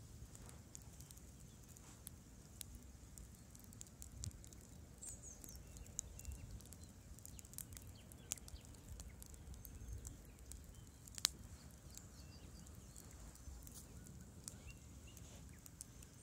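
Campfire crackling quietly: scattered sharp pops and snaps, the loudest about eleven seconds in, over a low steady rumble.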